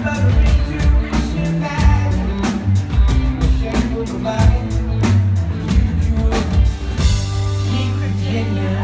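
Live rock band playing with a male lead vocal over drums, electric guitars, bass and keyboards, the drums keeping a steady beat. About seven seconds in the drums stop and the band holds a sustained chord.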